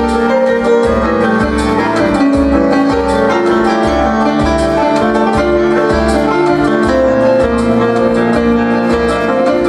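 Amplified live music: a string section of violins playing held melody notes over a steady, pulsing bass beat.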